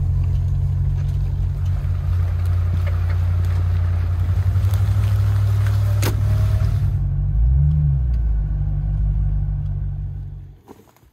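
Old Land Rover Discovery's engine running as the vehicle pulls in to park, with a short rev near eight seconds in; the engine is then switched off and its rumble cuts out suddenly shortly before the end.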